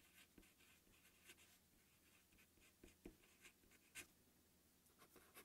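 Faint scratching of a felt-tip marker writing on paper: a few short strokes, the clearest about three and four seconds in.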